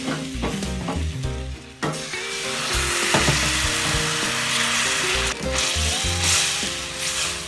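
Gram flour browned in desi ghee sizzling in a pan as water is added. A spoon stirs and clicks against the pan. The sizzle swells suddenly about two seconds in and stays loud.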